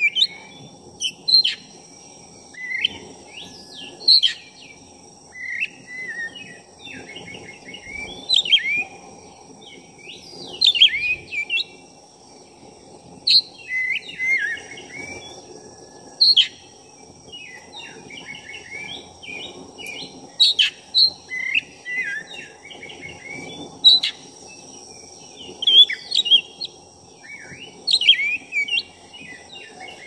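Black-breasted oriental magpie-robin (kacer dada hitam) in full, nonstop song ("gacor"): loud varied phrases of sharp whistles and quick chattering runs, one after another every second or two.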